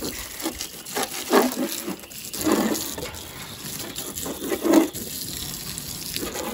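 Garden hose jet spraying water onto an RC monster truck and a metal shed wall: a steady hiss and splash, with a few short, louder sounds over it about a second and a half, two and a half and five seconds in.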